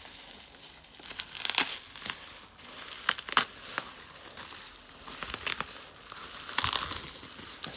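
Packaging being crinkled and torn open by hand, irregular rustling with several sharp crackles.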